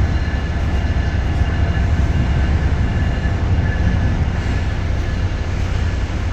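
Amtrak Northeast Regional train running, a steady low rumble with faint steady high whining tones above it.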